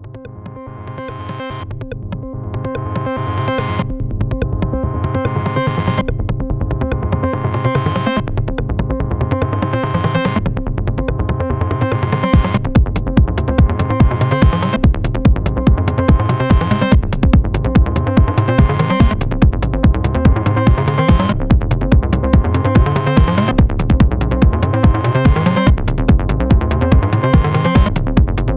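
Electronic music from Moog analogue synthesizers and a Roland TR-09 drum machine (a compact remake of the TR-909): a repeating synth bass sequence fades in, and the drum machine's beat joins about twelve seconds in.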